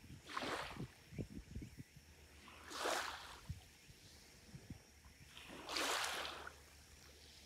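Small waves of a calm sea lapping onto a sandy beach: three soft washes, each swelling and fading, a few seconds apart, over a low rumble.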